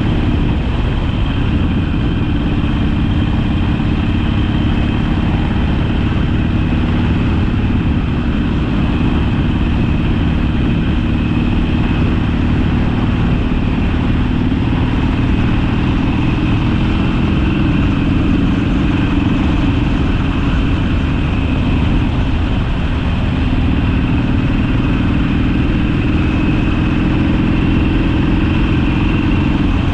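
Harley-Davidson Sportster's air-cooled V-twin engine running on the move, its pitch drifting gently up and down with the throttle.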